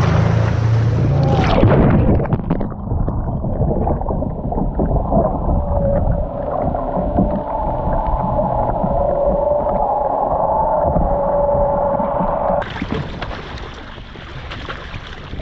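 A sea kayak capsizes and its mounted camera goes under. There is a loud splashing churn about a second and a half in, then muffled underwater gurgling and rushing water for about ten seconds. Near the end the camera breaks the surface and open-air splashing and wind return.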